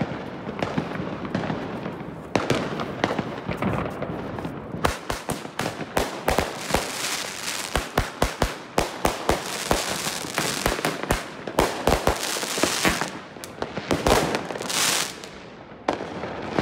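Fireworks going off: a few scattered bangs, then from about five seconds in a rapid run of sharp bangs and crackles, several a second, from a firework fired upward from the street, with a louder hissing surge near the end.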